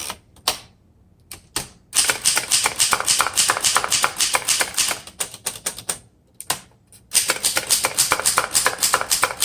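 A 1938 Remington Portable Deluxe manual typewriter being typed on: a few single keystrokes, then two quick runs of typebar strikes with a short pause between them. Each strike makes a pop, because the machine has no paper bail bar holding the paper against the platen, so the type hits paper lying over a gap of air.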